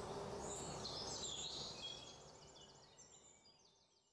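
Faint background ambience with short high chirps, fading out to silence near the end.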